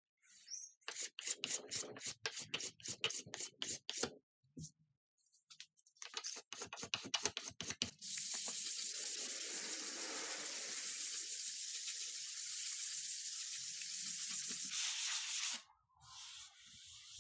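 A hand scraper worked across the end grain of a log slice in runs of quick strokes, then a sanding block rubbed steadily over the same surface for about seven seconds, stopping sharply.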